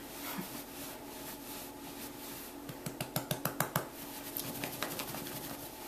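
A towel being rubbed over a wet cat to dry it, with a quick run of about nine light clicks about three seconds in, over a faint steady hum.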